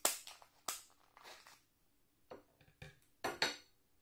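Kitchen scissors snipping through a cooked lobster tail's shell, then the shell cracked and pulled apart by hand. A series of sharp crunching snaps, about half a dozen, with the loudest at the start and near the end.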